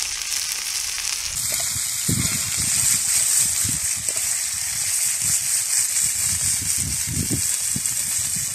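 Burgers sizzling in a frying pan over a hot charcoal barbecue: a steady hiss that gets louder and brighter about a second and a half in. Irregular low rumbles of wind on the microphone run underneath.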